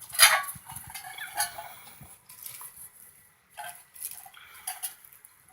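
Five-week-old puppies squeaking and yipping in short, irregular high-pitched bursts, the loudest just after the start.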